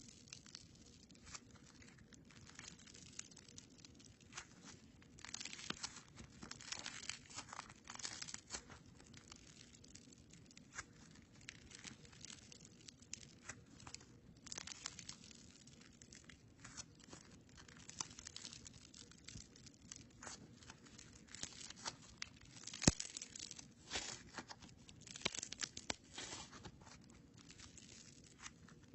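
Crunchy slime being squeezed and worked by hand, crackling and popping in irregular clusters of small sharp clicks, with one louder snap a little over three quarters of the way through.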